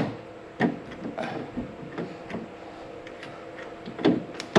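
Scattered clicks and light metallic knocks of door-handle and central-locking parts being handled and fitted inside a car door, with a couple of louder knocks near the end, over a faint steady hum.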